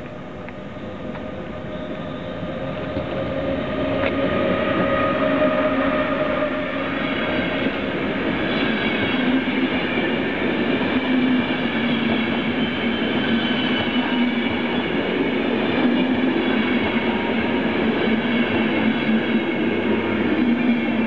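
ÖBB electric passenger train, a locomotive hauling coaches, approaching and passing close by. The rumble grows louder over the first few seconds, then the coaches roll past with a steady noise of wheels on rails and a low hum.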